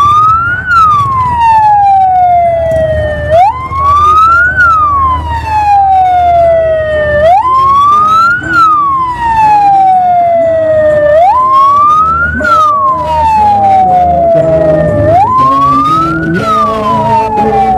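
A siren wailing in a repeating cycle, each time rising quickly and falling slowly, about every four seconds, over a low rumble.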